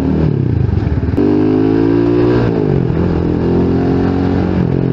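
Rusi Sigma 250 motorcycle engine under way. About a second in it revs up sharply and holds, then the note glides down about halfway through and settles to a lower steady run.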